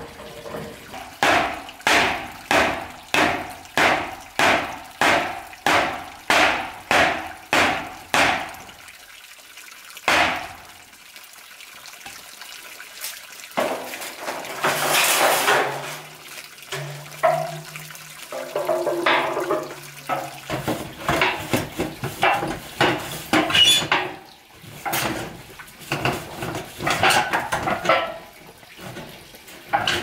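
Steady hammering on corrugated metal sheeting fixed to a wooden post, about two blows a second for some nine seconds, the sheet ringing with each blow. Later come scattered knocks and the clatter of sheet metal being handled.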